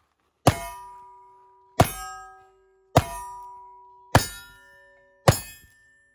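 Five revolver shots from single-action revolvers loaded with black powder, about a second apart. Each is followed by the ringing clang of a steel target being hit.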